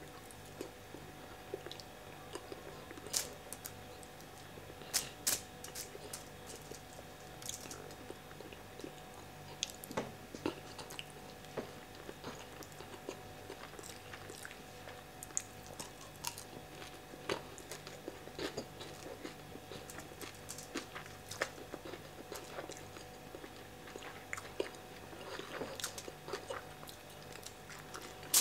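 Close-miked chewing and mouth sounds of a person eating with his fingers: irregular short clicks and smacks scattered throughout, with a faint steady hum underneath.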